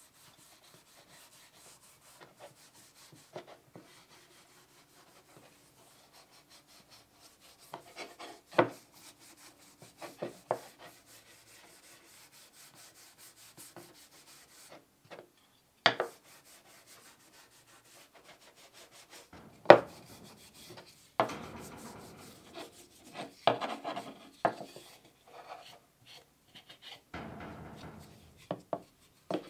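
Sandpaper rubbed by hand along a wooden bucksaw arm: scratchy rasping strokes, faint at first and growing denser and louder in the last third. A few sharp knocks stand out along the way.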